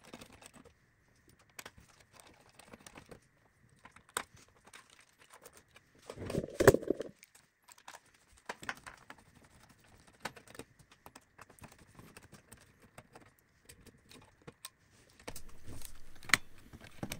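Screwdriver working the screws of a receiver's front-panel circuit board: scattered small metallic clicks and scrapes, with one louder clatter of handling about six seconds in.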